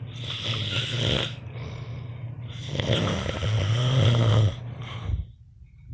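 A man snoring: two long snores a little over a second apart, the second longer and louder, each with a low drone under the breath noise.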